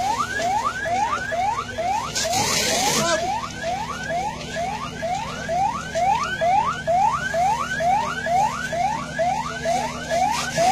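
Electronic emergency-vehicle siren in a fast yelp: quick rising sweeps repeating about two and a half times a second, over a steady low hum, with a brief hiss about two seconds in.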